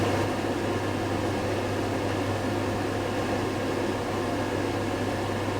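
Thermoacoustic Stirling engine with a rubber-balloon membrane running: a steady low hum from its oscillating acoustic wave, over the even hiss of its burner flame.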